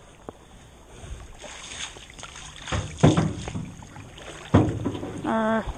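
Paddling an aluminum canoe: paddle strokes splashing in the water, with a few sudden thuds, the loudest about three seconds in. A short, steady hummed tone near the end.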